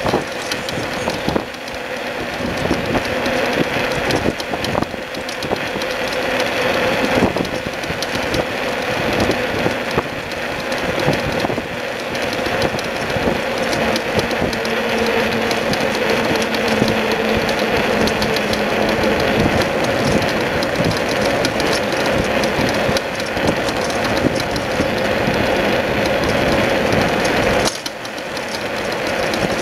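Bicycle trailer being towed along a road: a steady rolling and rattling noise with a constant hum. The level dips briefly near the end.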